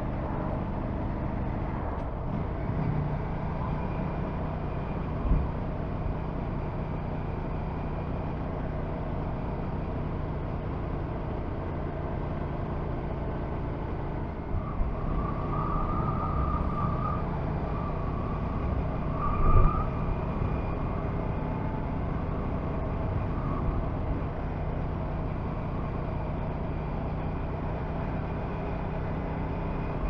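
Aprilia RS 457 parallel-twin motorcycle engine running steadily on the move, with a short low thump about five seconds in and another about twenty seconds in.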